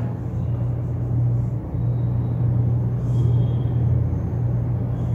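A steady low hum with room noise, and faint squeaks of a marker writing on a whiteboard.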